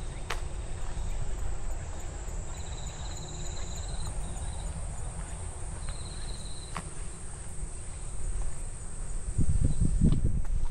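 Insects singing in late summer: a steady high-pitched buzz with two short pulsed trills at a lower pitch, one a few seconds in and one about halfway. A low rumble on the microphone runs underneath and grows louder near the end.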